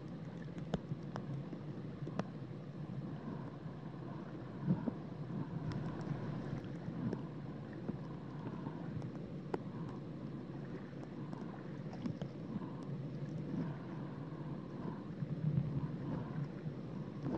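Shallow-water ambience heard underwater: a steady, muffled rumble of moving water that swells slightly now and then, with scattered faint clicks and taps.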